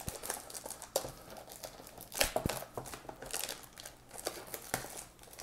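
Clear plastic shrink-wrap being torn open and peeled off a cardboard card box, crinkling in irregular crackles with a few sharper snaps.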